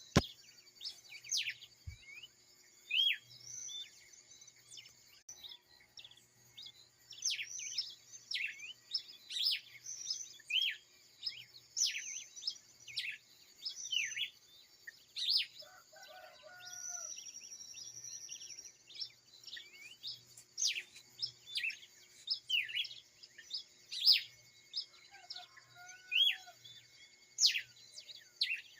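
Dawn chorus of many birds: rapid, sharp chirps that sweep quickly down in pitch, one after another, with a lower-pitched call breaking in twice, midway and near the end, over a faint steady high hum.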